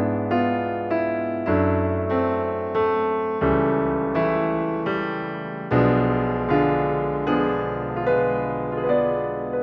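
Background piano music: a melody of notes struck about twice a second, each fading after it is struck.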